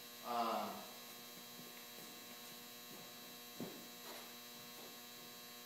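Steady faint electrical hum, with a brief sound of a man's voice just after the start and a single small click about two-thirds of the way through.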